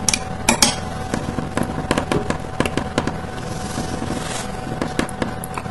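A run of irregular sharp clicks and taps: small magnets being set back onto a laminated steel block, then a wire lead tapped on and off a 6-volt battery terminal to pulse DC through a coil.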